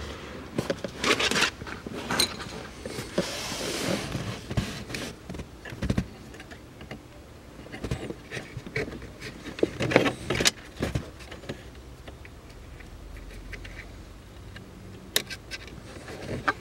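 Hands working a nylon cable tie around a plastic air duct under a car's dashboard: scattered clicks, taps and rustles of plastic, with a longer rustle about three seconds in.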